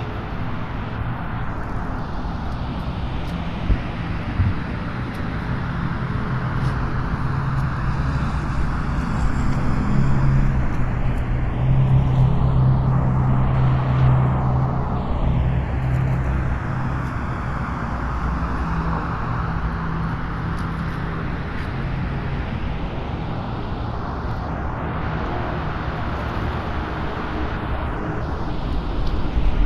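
Cars passing on a rain-soaked road: tyre hiss over the wet surface swells and fades as each vehicle goes by, the loudest pass around the middle, with a steady wash of rain noise throughout.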